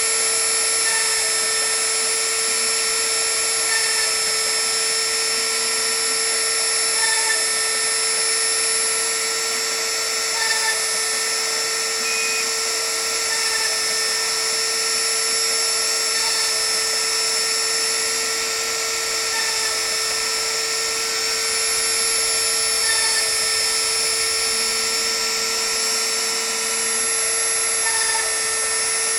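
The small high-speed spindle of a homemade CNC mill whines steadily as it drills through-holes in a copper-clad circuit board. Its pitch holds constant, with a brief blip about every three seconds.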